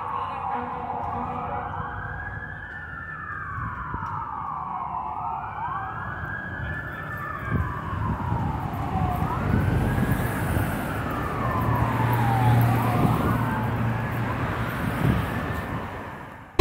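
Fire apparatus siren sounding a slow wail, rising and falling every three to four seconds, at times with a second siren slightly out of step, growing louder, over the rumble of city traffic.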